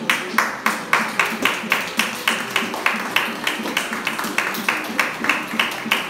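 Audience clapping together in a steady rhythm, about four claps a second, over background music.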